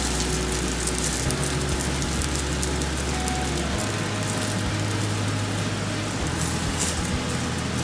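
Potato scone frying in hot vegetable oil in a stainless steel pan, a steady sizzle. A low hum sits underneath and shifts in pitch every couple of seconds.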